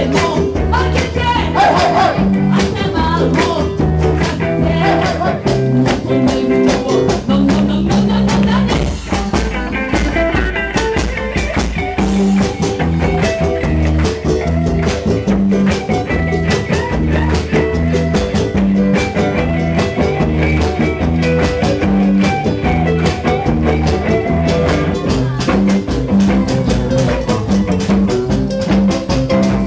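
A live band playing with electric bass, guitar, ukulele and percussion. The bass repeats a line of notes under a steady beat.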